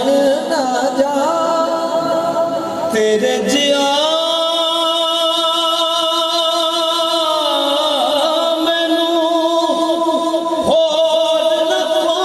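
Male voice singing an Islamic devotional kalam in a slow, ornamented melody. Wavering runs give way, about four seconds in, to one long held note.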